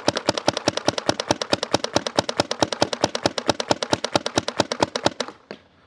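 GOG eNMEy fully mechanical paintball marker firing a rapid, steady string of shots on compressed air, about eight to nine shots a second, as the trigger is worked as fast as it will go. The string stops about five seconds in.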